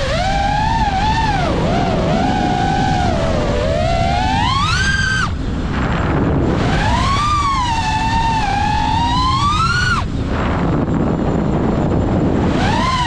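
FPV quadcopter's brushless motors whining, the pitch rising and falling with the throttle. Twice the whine climbs and then cuts out, leaving a rush of air and wind noise before the motors spool back up.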